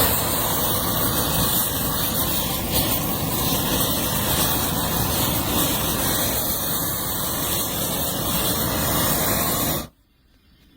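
Propane weed burner torch burning at a steady, loud rushing sound that stops abruptly near the end.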